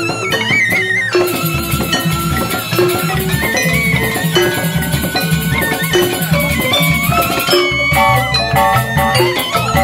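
Balinese joged bumbung gamelan music played live for the dancer: a wavering bamboo-flute melody over a repeating pattern of bamboo xylophones and drums. A deeper drum beat comes in about a second and a half in.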